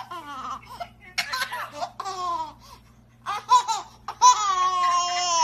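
Baby laughing in several short bursts, then a long, high-pitched squealing laugh near the end. A steady low hum runs underneath.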